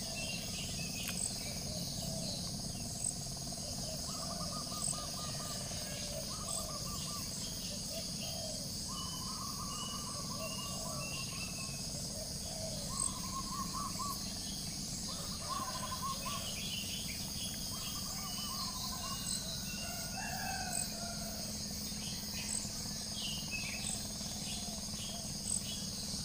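Outdoor nature ambience: a steady high insect drone, with birds calling in short chirping phrases every second or two.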